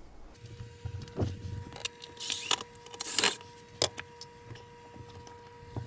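Metal clinks, scrapes and rattles as a sheet-metal dishwasher panel is handled and worked off, a handful of sharp clicks, over a faint steady hum.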